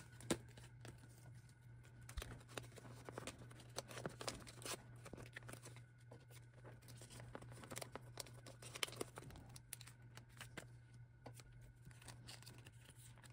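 Faint plastic rustling and crinkling as photocards are handled and slid into clear plastic binder pocket pages, with many small irregular taps and clicks.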